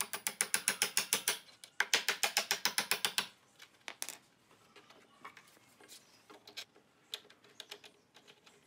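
Socket ratchet wrench clicking rapidly as a bolt is tightened, in two quick runs with a short pause between, then only a few faint ticks.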